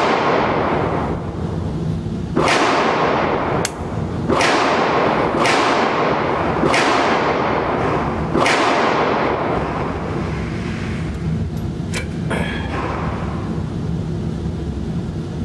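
Marlin 795 semi-automatic .22 LR rifle firing about six shots at an uneven pace. Each sharp crack is followed by a long echoing decay in an indoor range. A couple of light clicks about twelve seconds in, as the rifle stops with a failure to eject.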